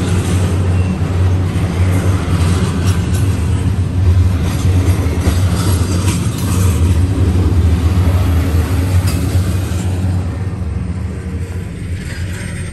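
Double-stack container train of well cars rolling past: a steady low rumble of steel wheels on rail, with sharp clanks now and then as wheelsets pass over rail joints. The sound slowly fades over the last few seconds.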